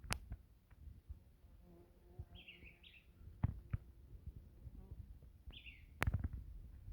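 A bird calling in short falling chirps: a pair a little over two seconds in, another about five and a half seconds in. Scattered faint knocks and thumps run underneath, the loudest about six seconds in.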